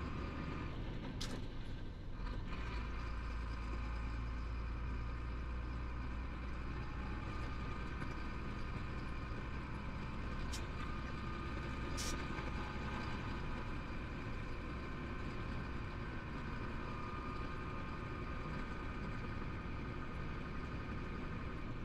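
Chenglong heavy truck's diesel engine and road noise heard from inside the cab while cruising on the highway: a steady low drone that deepens and strengthens about two seconds in, with a few faint ticks.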